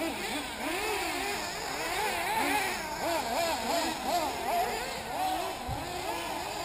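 Several 1/8-scale nitro RC buggies, with small glow-fuel two-stroke engines, racing together. Their high-pitched engine whines overlap and keep rising and falling as the cars accelerate down the straights and back off for the corners.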